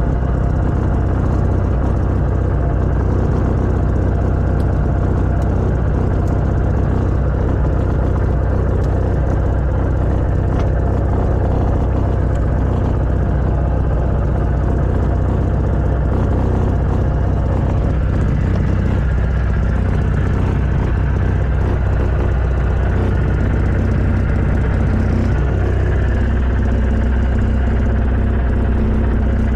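Light aircraft's piston engine and propeller running at low power while it taxis, a steady drone heard from inside the cockpit, its tone shifting slightly near the end.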